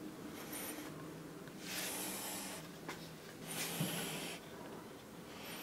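Faint breathing close to the microphone: two breaths, each about a second long, about two seconds apart.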